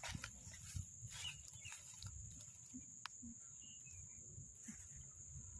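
Faint swamp-side ambience: a steady high-pitched insect drone, with scattered light rustles and taps.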